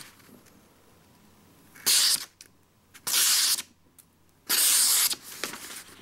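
Splitman multitool's plain-edge knife blade, its edge freshly touched up on a sharpener, slicing through a sheet of paper: three quick cutting strokes, each about half a second long, about two, three and four and a half seconds in.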